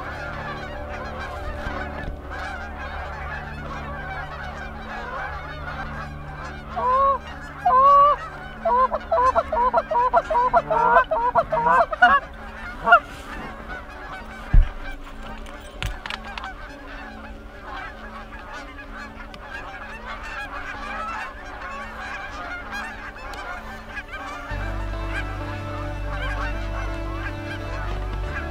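A large flock of Canada geese honking steadily as it circles and comes in to land. About seven seconds in, a run of loud, close honks repeats about two a second for some five seconds. A single sharp knock comes midway, and a low rumble comes in near the end.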